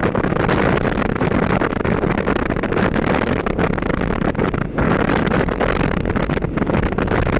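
Steady rumble of a moving passenger train, with wind buffeting the microphone.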